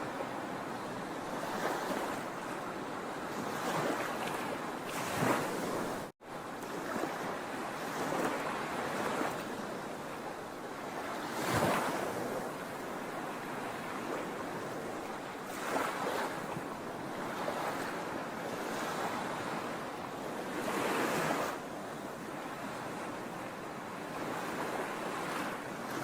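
Sea waves washing onto a shore: a continuous surf hiss that swells as a wave breaks every four to six seconds. The sound cuts out for an instant about six seconds in.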